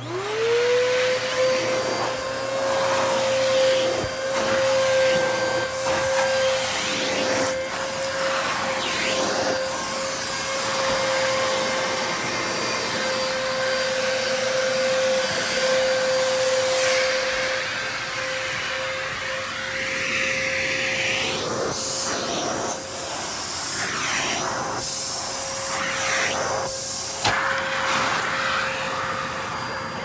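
Dyson DC33 vacuum cleaner switching on, its motor whine rising within about a second to a steady pitch, then running with a hiss of suction. In the second half the hose nozzle working the stair carpet adds short, sharp rushes of air and knocks.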